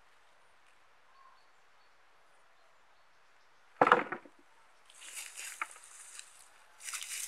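A handful of potatoes dropped into a plastic bucket with one loud knock about four seconds in, followed by dry rustling and crackling as potato stalks and grass are pulled and handled.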